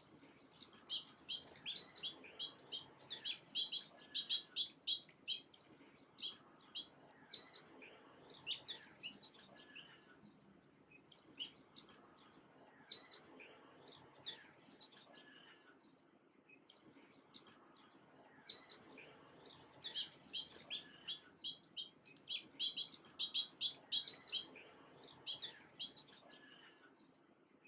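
Small songbirds chirping: rapid strings of short, high chirps in two dense bouts, with scattered calls between.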